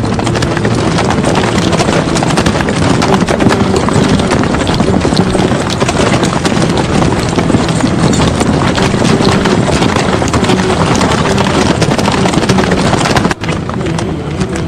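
Many horses' hooves galloping together in a dense, continuous clatter, with a brief break about 13 seconds in.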